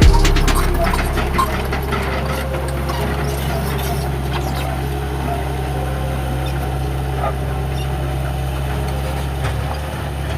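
Toy excavator at work: a steady low engine-like hum with many small clicks and scrapes running through it.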